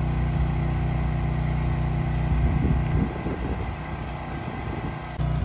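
An engine running steadily with a low hum. Between about two and a half and five seconds in, the hum breaks up and drops somewhat, then comes back steady just before the end.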